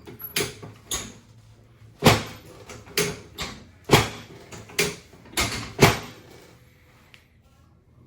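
Sharp wooden and mechanical clunks and knocks from a chiropractic treatment table being set up. There are about nine of them over six seconds, and the loudest come about two and four seconds in.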